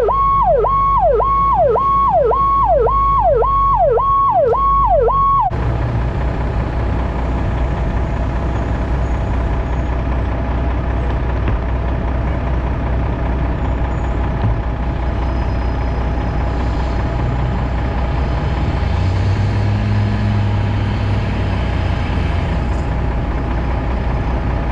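Fire engine's electronic siren sweeping down and back up about twice a second, cutting off suddenly about five seconds in, followed by the steady low drone of the truck's engine and road noise.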